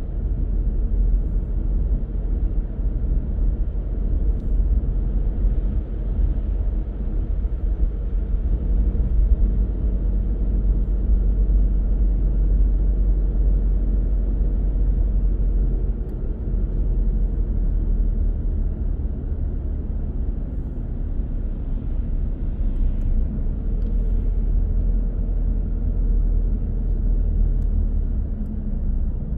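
A car on the move: a steady low rumble of engine and tyre road noise.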